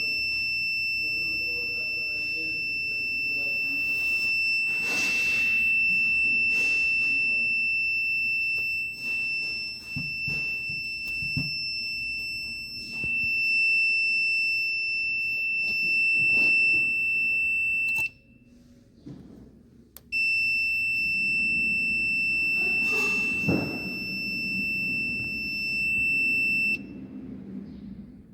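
Alarm buzzer of a MAM-860 compressor controller sounding a steady, high-pitched continuous tone. It cuts out for a couple of seconds about two-thirds of the way through, comes back, and stops again near the end. The alarm is tied to a three-phase supply problem.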